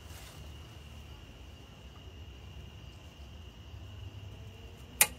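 Quiet steady background with a faint continuous high-pitched tone, and one sharp click about five seconds in from hand tools working the brake caliper's lower mounting bolt.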